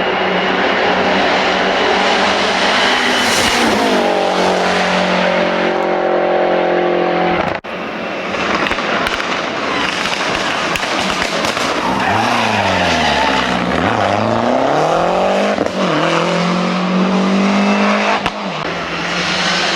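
Lancia Delta Integrale's turbocharged four-cylinder engine driven hard, heard from inside the cabin. Revs climb with a sudden break at a gearchange about a third of the way in, then the pitch drops steeply as the car brakes and downshifts, and rises again as it accelerates away.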